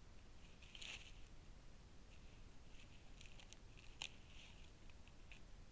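Faint crackling and rustling in dry leaf litter as a wolf noses through it, with a few short ticks and one sharper click about four seconds in, over near silence.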